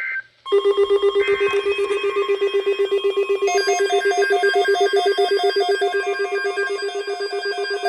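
Several NOAA weather radios going off for an incoming alert: their rapid electronic beeping alarms pulse over the steady warning-alarm tone of the broadcast. A second, higher-pitched beeping alarm joins about three and a half seconds in.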